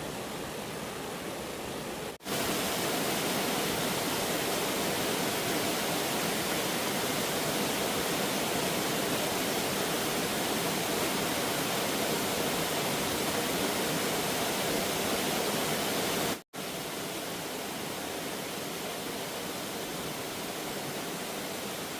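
Steady rush of water from a waterfall. It cuts out abruptly twice, about two seconds in and again near sixteen seconds, and between the two breaks the rush is louder.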